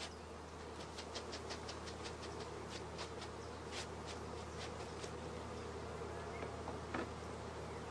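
Honeybees buzzing steadily as they are brushed off a comb frame into an open hive, with many faint ticks over the first four seconds and one more near the end.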